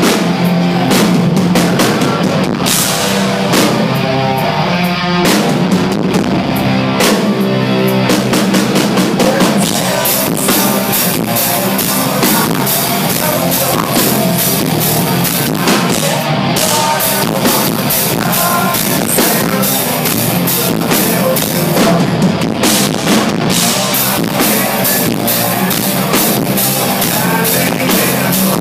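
Live rock band playing loud: a pounding drum kit with electric guitar and bass guitar.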